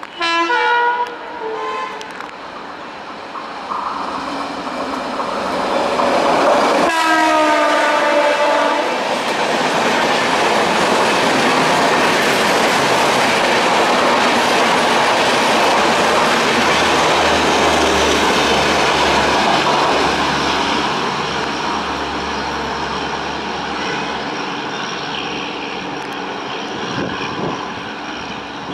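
WAP-7 electric locomotive sounding its horn twice, a short blast at the start and a longer one about seven seconds in. Its double-decker passenger coaches then roll past with a steady rumble and clickety-clack of wheels, fading slowly in the last several seconds.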